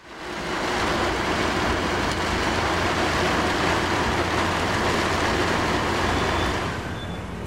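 Steady vehicle cabin noise heard from inside the cab: a broad rush with a low engine hum under it, which drops somewhat near the end.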